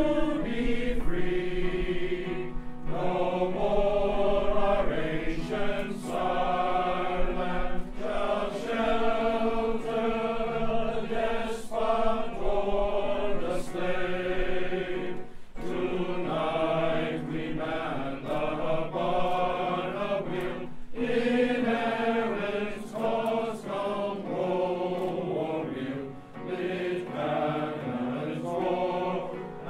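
A men's glee club choir singing an anthem in sustained phrases, with audience members, women among them, singing along.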